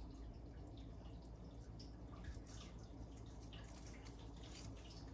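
Sharp knife slicing through juicy roast pork: faint, irregular wet clicks and ticks over a low steady hum.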